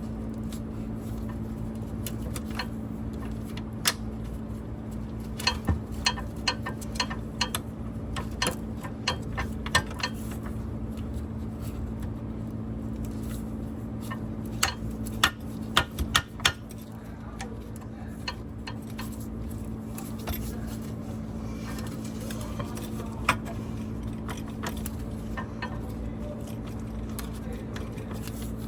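Scattered metallic clicks, clinks and knocks of hand tools and hardware against a seat shock and its mounting bracket as the shock is worked into place, over a steady low hum. The clicks come thickly through the first half, then thin out to a single knock later on.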